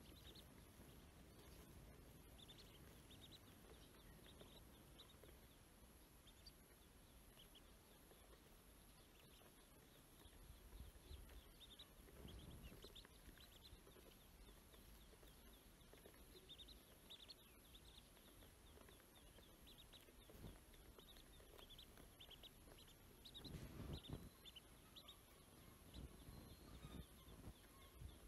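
Faint peeping of ducklings: short high chirps in scattered clusters, over a low rumble that swells briefly about halfway through and again near the end.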